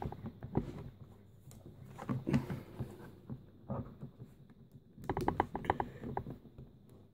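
Plastic clicks and taps as an iBook G3's battery is pressed into place and its latch is worked by hand, with a quick run of clicks about five seconds in.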